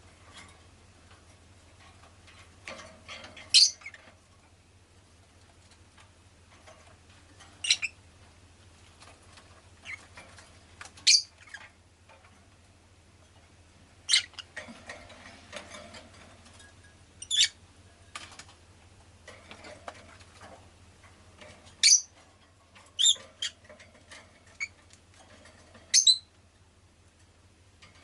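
Rosy-faced lovebird giving short, sharp, high chirps every few seconds, about eight in all, a couple of them in quick pairs. Faint clicks between the calls and a steady low hum.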